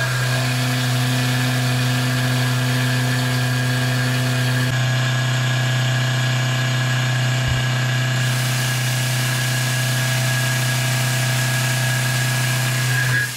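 CNC milling machine spindle running as a 3/8-inch carbide end mill cuts O1 tool steel. It makes a loud, steady machining drone: a strong low hum with a higher whine above it, which stops right at the end.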